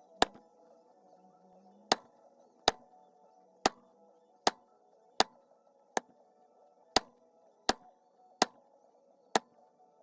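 Mallet striking a basket weave leather stamp into wet 8/9 oz veg-tan leather: about eleven sharp single strikes, each close to a second apart, as the basket weave pattern is tooled. Quiet background music plays underneath.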